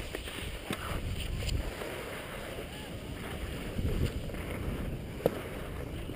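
Skis scraping and chattering over hard, tracked snow while the skier descends, with wind rushing over the camera microphone. A sharp click stands out about five seconds in.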